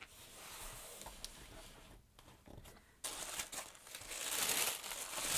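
Orange tissue paper rustling and crinkling as hands fold it back inside a cardboard box. Soft at first, a brief lull about two seconds in, then louder, busier crinkling for the last couple of seconds.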